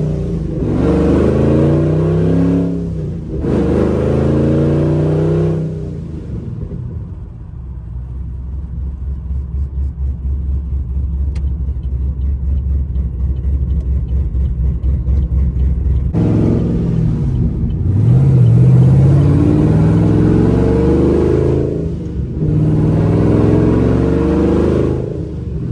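Supercharged V8 of a fifth-generation Camaro SS heard from inside the car. It accelerates hard with its pitch climbing, drops briefly at a gear change and climbs again. It then eases off to a lower, uneven pulsing rumble for about ten seconds, and near the end pulls hard through another gear change.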